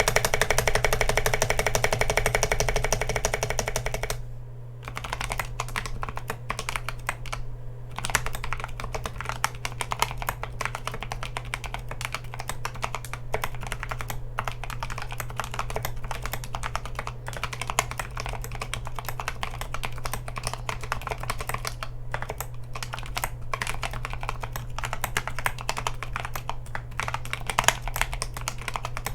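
A few seconds of music, then typing on a mechanical keyboard fitted with Unpolia 4T tactile switches (Kailh Polia housings with Gazzew Boba U4T stems). It is a quick, continuous run of keystroke clicks.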